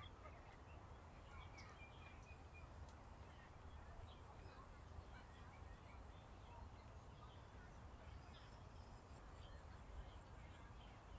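Near silence outdoors: faint, scattered bird chirps and a steady high-pitched tone over a low rumble.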